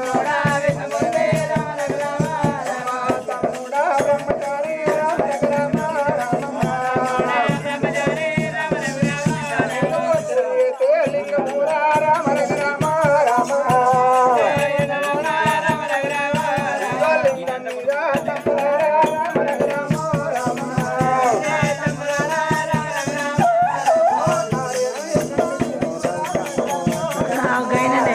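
Telangana oggu katha folk music: voices singing a bending, melodic refrain over a barrel drum and a steady jingling rattle, kept up without a break.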